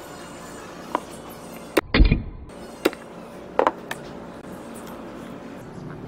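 Sharp metal taps from center-punching a cast aluminium part, about five of them roughly a second apart. The loudest, about two seconds in, has a heavy thump.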